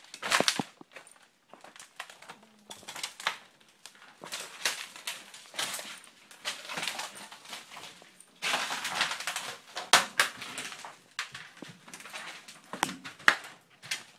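Irregular crunching and scuffing of footsteps and movement, mixed with rubbing and knocking against the phone's microphone as it is carried. It is densest from about 8 to 11 seconds in.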